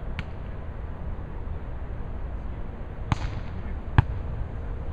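Beach volleyball being struck by players' hands and forearms: a faint distant hit just after the start, then two sharp slaps about a second apart, the second and loudest as a diving player digs the ball. A steady low rumble runs underneath.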